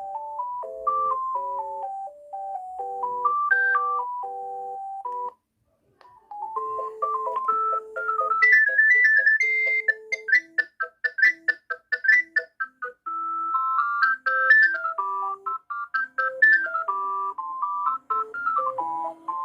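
Alcatel OT-153 mobile phone playing its built-in ringtones: a melody with two or three notes sounding at once ends about five seconds in, and after a pause of about a second a faster, busier ringtone tune starts.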